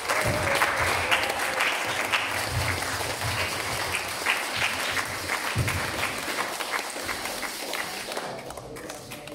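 Church congregation applauding, the clapping thinning out and fading away near the end.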